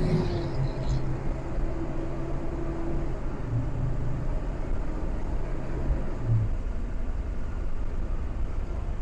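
Bus driving at road speed, heard from inside the cab: steady low rumble of engine and tyres, with a humming tone that fades away about three seconds in and another that drops out about six seconds in.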